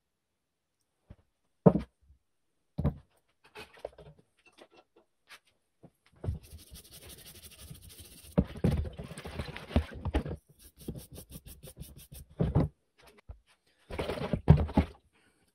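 Stiff scrub brush scrubbing a cast-aluminium alternator end housing in a plastic tub of soapy water: several seconds of wet, scratchy scrubbing with a quick run of fast strokes. A couple of sharp clunks come first, and water sloshes near the end as the housing is pushed under.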